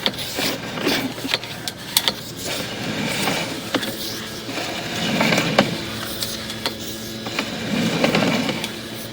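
Sewer inspection camera's push cable being fed down a sewer line: irregular clicks and knocks over a steady hum.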